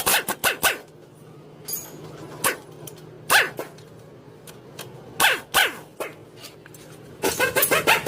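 A dog barking several times, each bark short and falling in pitch, followed near the end by a fast run of rattling clicks.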